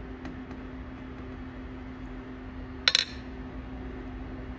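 A single sharp metallic clink about three seconds in, over a steady low hum.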